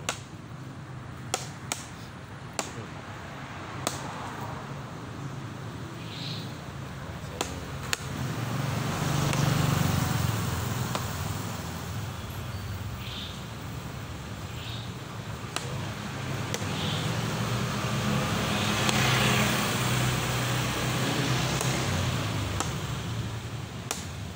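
Wooden chess pieces clacking down on the board as moves are made quickly: sharp single clicks a second or two apart, most of them in the first eight seconds. Road traffic passes behind, its engine and tyre noise swelling twice.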